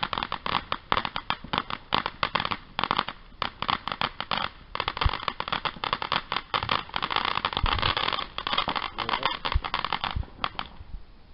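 Ground fountain firework spraying sparks with a dense, rapid crackling that dies out about a second before the end.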